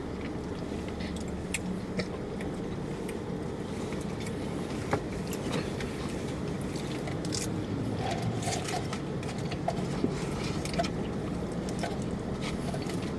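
Steady low hum inside a parked car's cabin, with scattered faint clicks and scrapes of a plastic fork in a cardboard fries box and quiet chewing.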